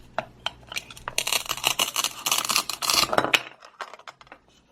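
A few light plastic clicks and taps, then a dense crackling rip of Velcro tearing apart for about two seconds as the plastic toy knife splits the Velcro-joined toy pear in half.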